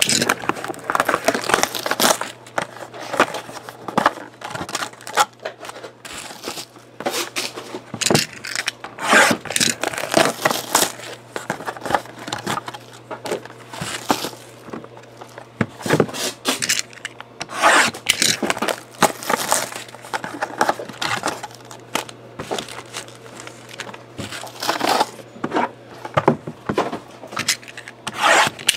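Plastic shrink wrap and foil trading-card packs crinkling, rustling and scraping as wrapped boxes and packs are handled and slid across a table, in irregular bursts.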